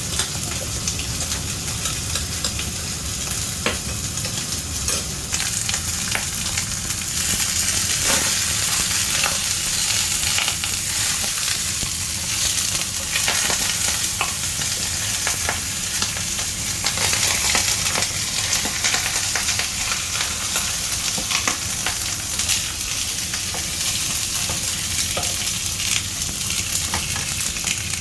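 Food frying in hot oil, sizzling steadily, with frequent short clicks and taps of a utensil being stirred in the pan.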